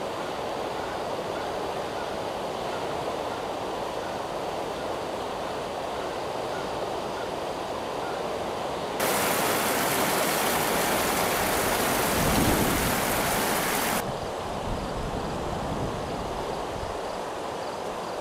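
River rapids rushing steadily. About nine seconds in, a louder, brighter hiss cuts in abruptly and stops just as suddenly some five seconds later.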